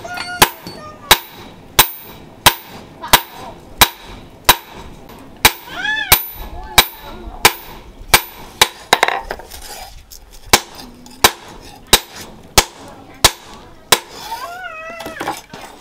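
Hand hammer striking a red-hot leaf-spring steel cleaver blade on a small steel anvil, hot-forging and shaping its tip. Steady blows about every two-thirds of a second, each a sharp clang with a short metallic ring, with a brief pause a little past the middle.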